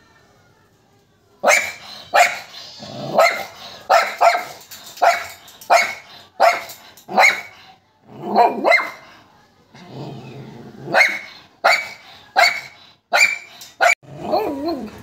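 Small white spitz-type dog barking over and over in short, sharp barks, starting about a second and a half in, at a cat on the roof outside. Near the end a wavering, bending cry comes in among the barks.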